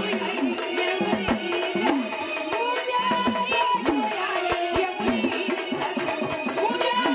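Marathi gondhal folk music: fast, dense drumming carries a bending melody line.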